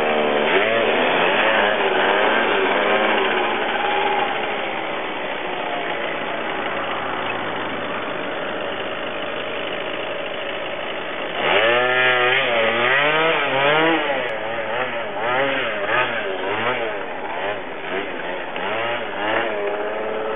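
Small motorcycle engine revving up and down repeatedly, its pitch rising and falling. About eleven seconds in, it gets louder, with quicker blips of the throttle.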